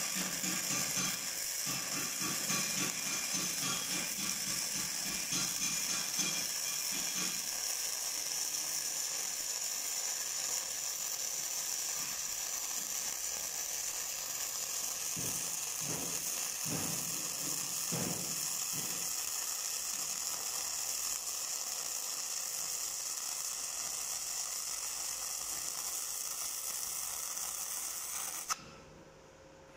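Flux-core (gasless) wire-feed welding arc from a Gladiator IMET 7160/120 inverter, running 1 mm E71T-GS wire on 18-gauge steel tube, crackling and hissing steadily. The arc cuts off abruptly near the end.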